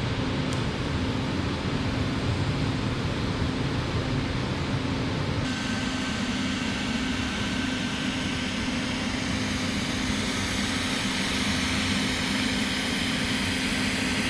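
Steady hum and hiss of TIG welding machines running in a welding shop, with a brighter hiss from about five and a half seconds in.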